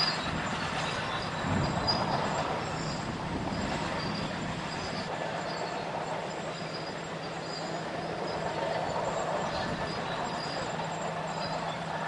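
Diesel engine of a crawler bulldozer running steadily, a low drone that holds one pitch.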